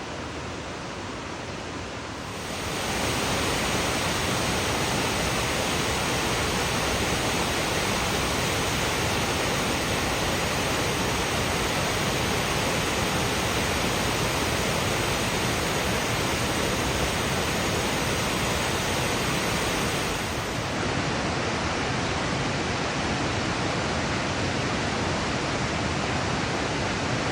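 Waterfall rushing: a steady, dense hiss of falling water that steps up in loudness about two seconds in.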